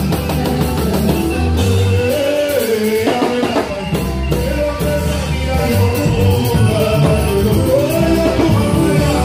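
Church praise band playing live, with a voice singing a wavering melody over bass and drums.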